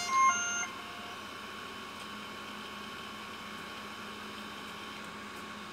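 DJI Matrice 210 power-up chime: a short run of electronic beeps at changing pitches that ends about a second in. After it comes a steady faint hum with a thin high tone as the drone sits switched on.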